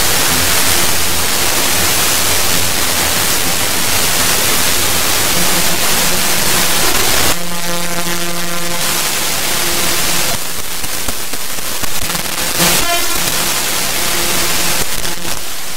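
Loud, harsh static-like noise in an electronic soundtrack, with a sustained chord breaking through for about a second and a half just before the middle.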